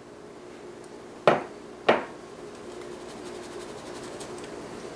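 Two sharp knocks about half a second apart: a glass bowl tapped against a wire-mesh sieve to empty out the flour. Faint quick ticking follows as the sieve is handled over the glass mixing bowl.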